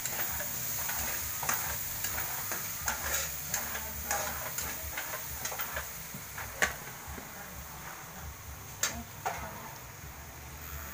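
Ground meat sizzling in a frying pan on a gas stove while a metal spatula stirs it, scraping and tapping against the pan. The taps come irregularly, the sharpest about two-thirds of the way through and again a couple of seconds later.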